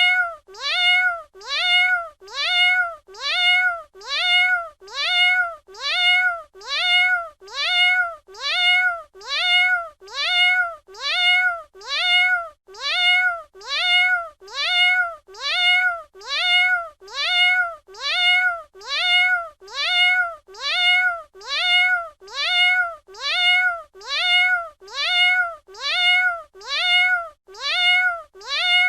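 A cat meowing: the same short meow repeated evenly about once a second, each call rising then falling in pitch.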